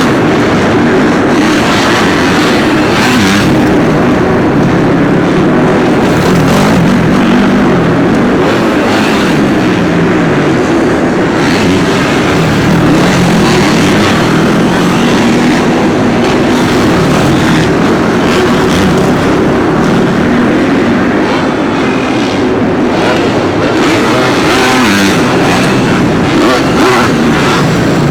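Several four-stroke motocross bike engines revving up and down together, their pitches rising and falling and overlapping without a break as the bikes ride the supercross track.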